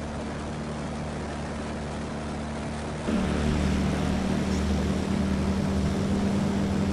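Just Aircraft SuperSTOL light aircraft's propeller engine running steadily, heard from inside the cabin. About three seconds in it switches to the engine heard from outside, a little louder, as a SuperSTOL makes its takeoff roll on grass.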